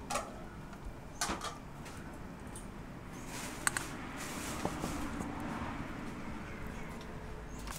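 Metal tongs clicking against a stainless steel bowl: a few light, separate clinks as pieces of stewed beef are set onto the salad.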